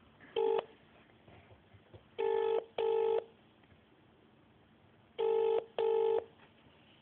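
British-style telephone ringing tone heard down the line while a call waits to be answered: double rings, two short beeps close together, repeating about every three seconds, after a single short beep near the start.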